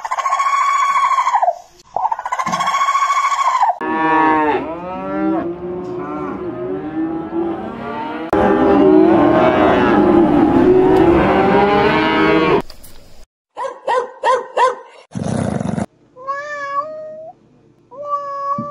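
Farm animals calling in a run of short separate clips: two long high calls, then about nine seconds of lower calls overlapping, a few sharp clicks about fourteen seconds in, and two short rising calls near the end.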